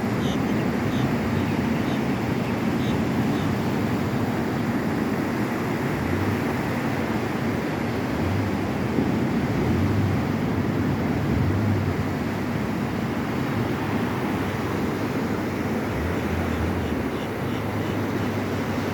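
Steady wash of ocean surf on a beach, with wind buffeting the microphone in low gusts every few seconds.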